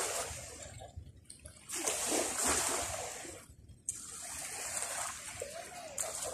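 Sea water washing onto the shore in repeated hissing surges, each a second or two long, with short lulls between them.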